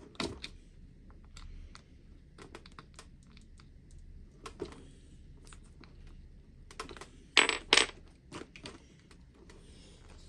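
Sharp clicks and clinks of a wheel being handled and pushed onto the hub of an RC rally car, scattered through, with a loud pair of clinks about seven and a half seconds in.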